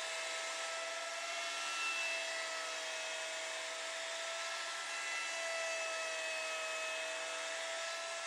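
Electric wood router running with a steady high whine over a rushing hiss, its pitch shifting slightly a couple of times as the bit carves into the wood.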